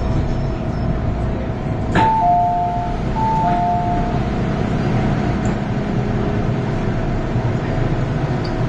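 Steady rumble and hum inside an MTR Island Line M-Train carriage. About two seconds in there is a sharp click, then a two-note falling chime that sounds twice over the train's speakers.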